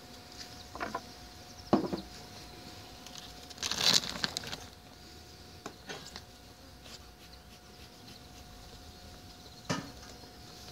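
Handling of an opened beehive: a few light knocks of wooden hive parts and a brief crinkly rustle of the plastic cover foil about four seconds in, over a faint steady hum.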